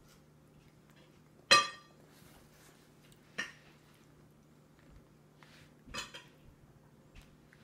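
Sharp clinks and taps at a baby's high chair tray: one loud clink with a short ringing tone about a second and a half in, a smaller tap about two seconds later and a couple more near the end.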